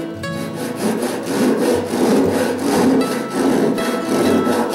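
Hand saw cutting wood in quick, steady strokes that stop suddenly near the end.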